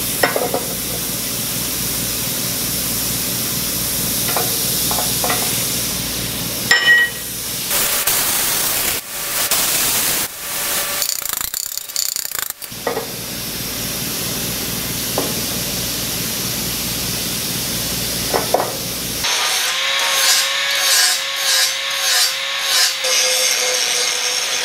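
An angle grinder with an abrasive disc grinding mill scale off a steel beam, starting about 19 seconds in. Its motor tone wavers under load, and the disc is struggling with the mill scale. Before that there is a steady hiss, broken in the middle by a few seconds of knocks and clatter.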